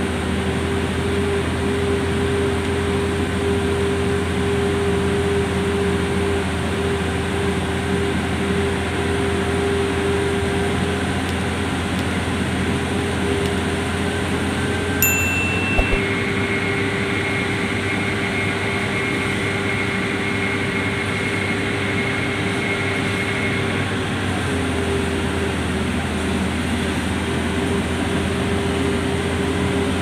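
Diesel engine of a heavy logging machine running steadily with a constant hum and drone. A couple of short clicks come about halfway, followed by a thin high whine that holds for several seconds.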